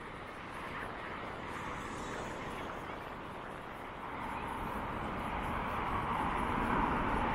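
Street ambience beside a main road: a steady hum of motor traffic, with an engine noise growing steadily louder over the last few seconds.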